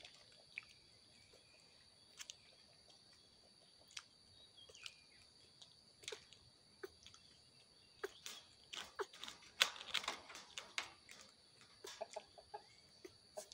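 Faint clicks and knocks of small plastic toys against a wire cage as baby monkeys handle them. The knocks come in quick clusters about two thirds of the way in, over a steady high-pitched whine.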